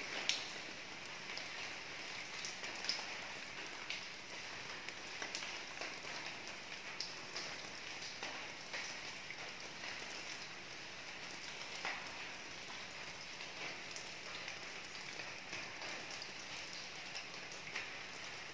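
Steady rain falling on a roof, with single louder drops ticking now and then on hard surfaces.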